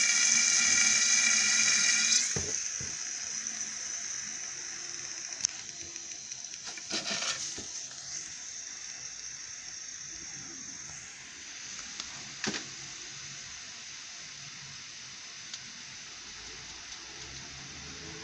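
Liquid nitrogen poured from a flask into a tray around a plastic miniature, hissing and bubbling as it boils on contact. The pour stops about two seconds in. The nitrogen left in the tray goes on boiling off with a softer, steady hiss that slowly fades, broken by a few faint clicks.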